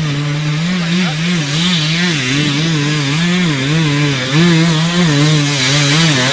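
Enduro dirt bike engine working under load on a steep wooded climb, its note rising and falling about twice a second as the rider blips the throttle.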